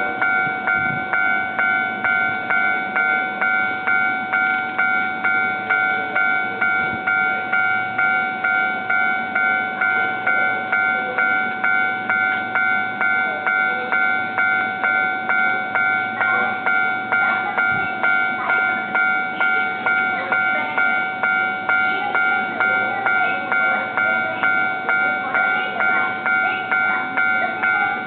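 Japanese level-crossing warning bell ringing steadily, about two strikes a second. The running noise of a Keio Line train joins it from about halfway through.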